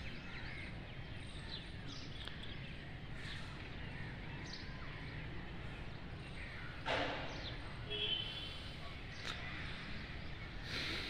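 Outdoor ambience: scattered faint bird chirps over a steady low rumble, with a short sharp sound about seven seconds in.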